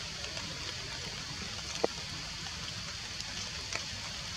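Steady outdoor forest ambience: an even hiss with a constant high-pitched band and a low rumble underneath, a few faint ticks, and one sharp click a little under two seconds in.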